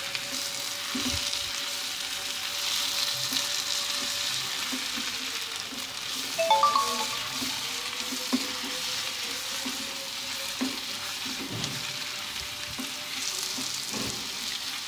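Sliced onions and ground spices sizzling in hot oil in a nonstick wok as they are stirred with a silicone spatula, with a few faint scrapes and knocks of the spatula against the pan. About halfway through there is a brief pitched sound.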